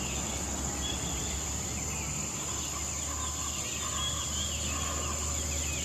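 Crickets trilling steadily in the background, one unbroken high-pitched drone, with faint short chirps over it.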